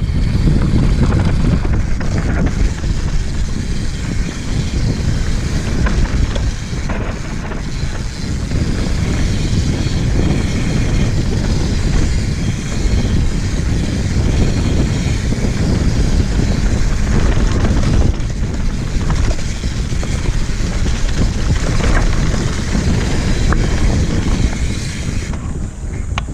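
Wind buffeting a handlebar-mounted GoPro as a Santa Cruz Megatower full-suspension mountain bike runs fast down a dirt trail, a steady rushing rumble with the tyres rolling over the dirt and occasional clicks and knocks from the bike. Near the end the rush eases and gets quieter.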